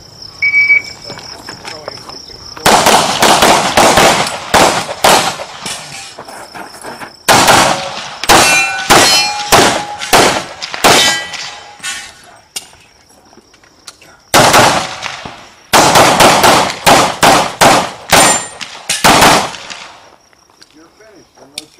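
Short electronic shot-timer beep about half a second in, then a semi-automatic pistol fired in several fast strings of shots with short pauses between them.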